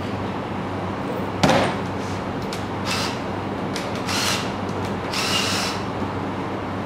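Metal rack uprights being handled on a workbench: a sharp clack about a second and a half in, then three short scraping slides of metal on the bench, over a steady background hum.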